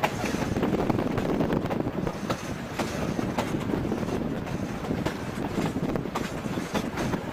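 Narrow-gauge train cars rolling along the track: a steady rumble and rattle of wheels on rail, with scattered clicks and knocks throughout.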